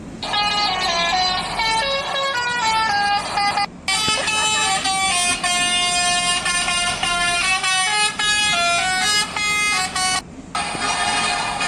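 Telolet multi-note horn playing a tune of stepped notes, with a brief break about four seconds in and another near the end.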